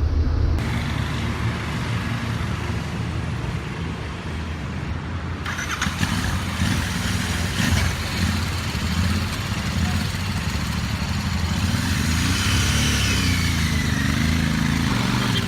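Royal Enfield Continental GT 650's parallel-twin engine running, its note rising and falling as it is revved in the last few seconds.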